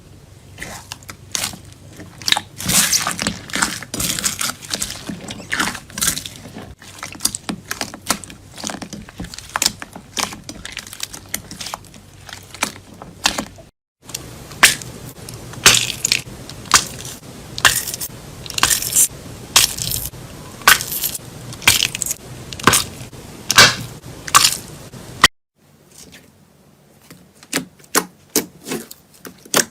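Slime being squeezed, poked and stretched by hand, giving many sharp crackling pops and sticky clicks. The sound changes abruptly twice, about 14 and 25 seconds in, as different slimes are handled.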